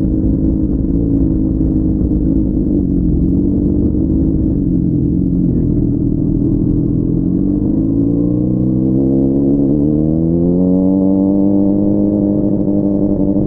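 Honda CBR600RR's inline-four engine running under way, its pitch sagging a little, then climbing smoothly for a few seconds and holding at higher revs. Heard muffled through a mic inside the rider's backpack.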